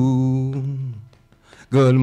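A man singing unaccompanied: a low held note trails off and fades about a second in, then after a short pause the next line begins on a new held note near the end.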